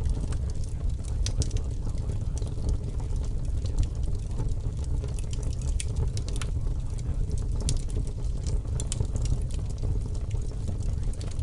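Steady low rumbling ambience with scattered crackles and pops throughout: the background sound bed of a subliminal audio track.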